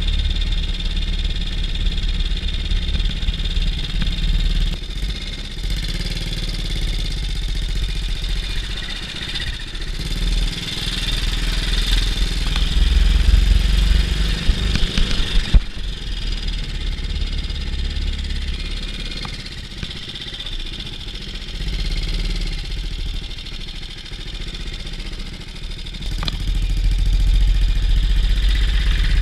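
BSA C15 Star 250's single-cylinder four-stroke engine running, its level rising and falling, with a few sharp knocks about halfway through.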